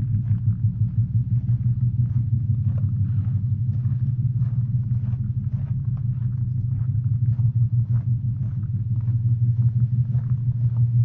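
Drum beat played through a loudspeaker: deep low drum sounds pulsing about twice a second, with lighter higher taps over them.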